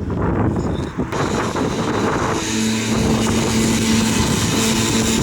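Vehicle on the move: steady road and wind noise, joined about two and a half seconds in by a steady engine note.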